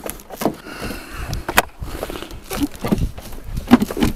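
Scattered clicks, knocks and rustling of hands handling a snow-covered car door and its frame, with a few low thumps.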